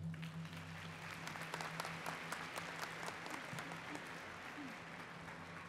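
Audience applauding: many hands clapping in a dense, steady patter that slowly eases off.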